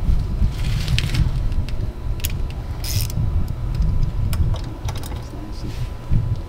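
Metal parts clinking and clicking as propeller hardware is handled and slid off an outboard motor's propshaft, a few sharp clicks spread out, over a low rumble.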